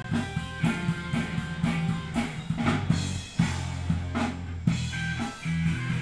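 Ska-punk band music: drum kit with snare and bass drum hits, guitar and bass playing together.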